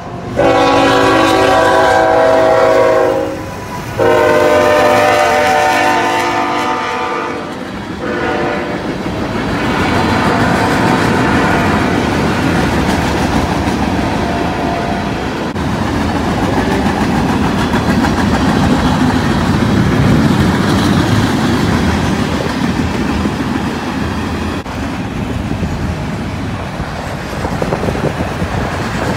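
Diesel locomotive air horn sounding two long blasts and a short one. Then a freight train of tank cars and autorack cars rolls steadily past, with wheels clacking on the rails.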